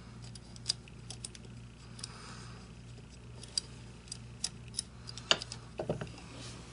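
Faint, scattered small metal clicks and ticks as a small screw is threaded by hand into an AR-15 anti-rotation trigger pin and its dog-bone link, with a few louder clicks about five to six seconds in. A faint steady low hum lies underneath.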